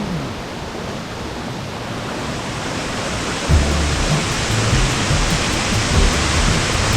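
Waterfall's steady rush of falling water, slowly growing louder; background music with a low beat fades in about halfway through.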